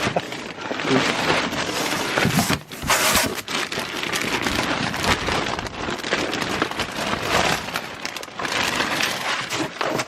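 Plastic packaging rustling and crinkling with irregular crackles as a body-armor carrier is unwrapped by hand.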